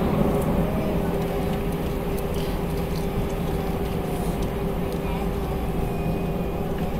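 Airbus A319 cabin noise while taxiing, heard from a window seat by the wing. The jet engines are at taxi power, giving a steady low rumble with an even hum and a steady mid-pitched tone.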